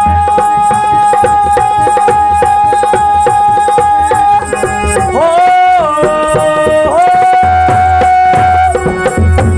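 Maithili nirgun bhajan performed live: a male voice holds a long high sung note over harmonium, then slides through a short phrase into a second held note, while a dholak keeps a steady beat underneath.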